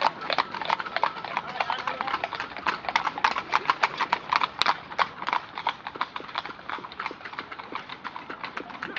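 Hooves of a group of horses clip-clopping along, a dense, uneven patter of many hoof strikes.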